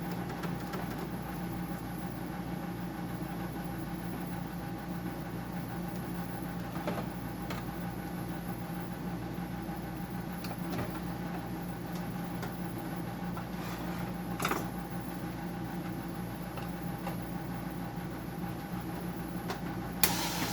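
Steady mechanical hum from a running machine, with a few scattered clicks and knocks of handling. A short, loud burst comes near the end.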